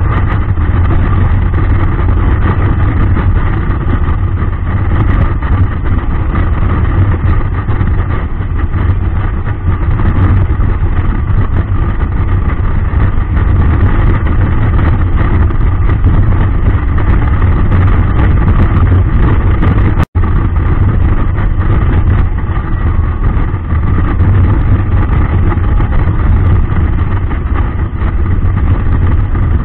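Motorcycle engine and wind noise at highway cruising speed, picked up on the rider's own bike: a steady low hum under a continuous rush. It breaks off for an instant about twenty seconds in.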